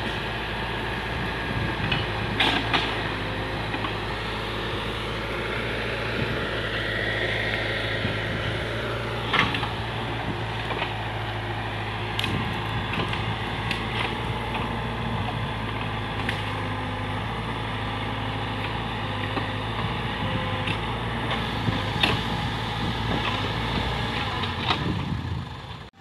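Case 580K backhoe loader's diesel engine running steadily while the machine works, pushing brush and digging earth. A few sharp knocks and clanks from the working machine stand out above the engine.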